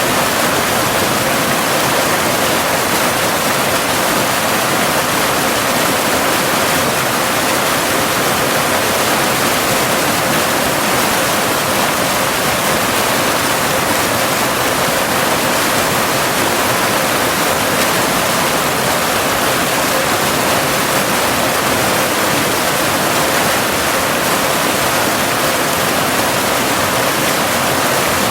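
Cascading waterfall rushing steadily, an even, unbroken water noise, with a faint steady 528 Hz binaural tone running underneath.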